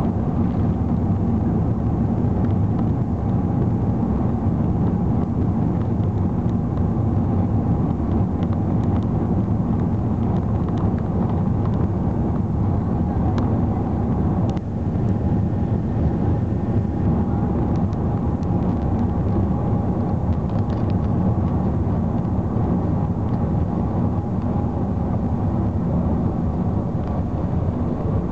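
Steady low rumble of engine and rolling noise inside the cabin of an Airbus A380 slowing down and taxiing after touchdown, with a faint steady whine above it.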